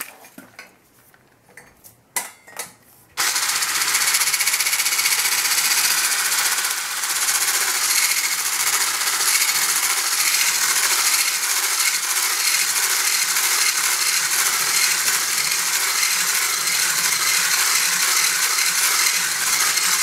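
A handheld electric mixer is switched on about three seconds in and runs steadily, its beater churning egg, flour and yogurt batter in a small stainless steel saucepan. Before it starts there are a few light clicks.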